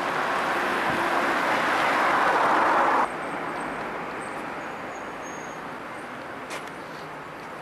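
A rushing outdoor noise that grows louder for about three seconds, then cuts off abruptly to a quieter, steady street-traffic noise.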